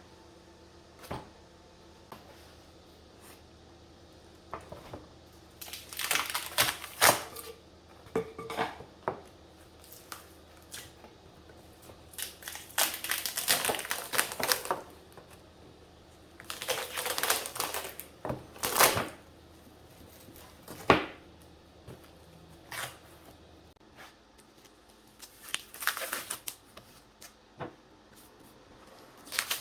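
Hand work on small wooden pieces: bursts of scraping and rustling a second or two long, with sharp clicks and taps in between. A faint low hum underneath stops about two-thirds of the way through.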